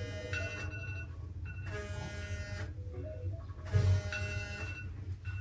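A hidden electronic alarm ringing: a repeating beeping melody in phrases about a second long with short gaps, over a low steady buzz. A single thump is heard about four seconds in.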